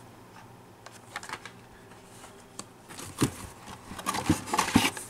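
Carded toy cars being handled and pulled from a cardboard case: plastic blister packs and card backs clicking and rustling against the cardboard. The clicks grow louder and more frequent in the second half.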